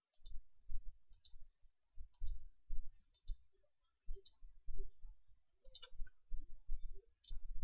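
Computer mouse button clicked repeatedly, about once a second. Each click is a quick press-and-release tick pair with a dull low thump beneath it.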